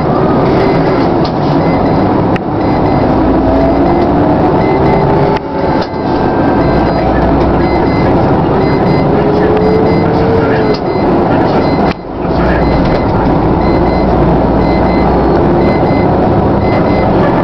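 Vehicle engine and road noise heard from inside the cabin while driving. The engine pitch climbs steadily as the vehicle speeds up and breaks off briefly twice, at what sound like gear changes.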